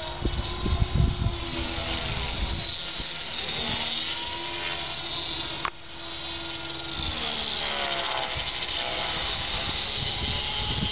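HK450 PRO electric RC helicopter in flight: the motor and rotor whine, several pitches gliding up and down as it manoeuvres, with an unusual squeaky 'kyuri-kyuri' noise. A brief dropout about halfway through.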